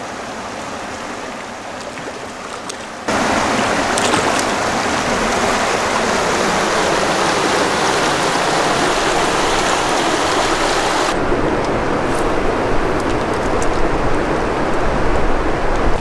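Creek water running over rocks, a steady rush that gets clearly louder about three seconds in and takes on a deeper rumble from about eleven seconds in.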